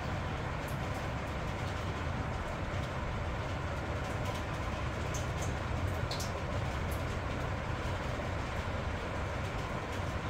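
Steady low rumbling background noise, even throughout, with a few faint light clicks over it.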